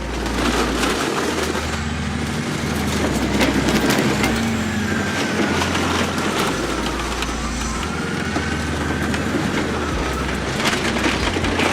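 Caterpillar D9H bulldozer's diesel engine running under load with repeated sharp cracks and crunches as it drives over and flattens motorcycles.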